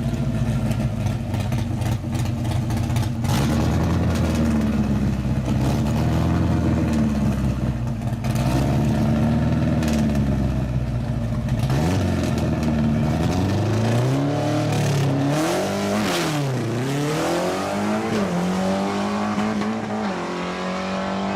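Pontiac Tempest's 3.2-litre four-cylinder engine idling steadily, then revved repeatedly from about halfway through, its pitch rising and falling with each blip and held higher near the end.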